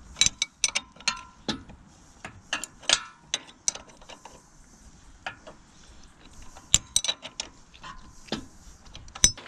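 A spanner working loose the tight mounting nuts of an old trailer hitch: irregular metallic clicks and clinks, some with a short ring, the loudest about three seconds in, near seven seconds and near the end.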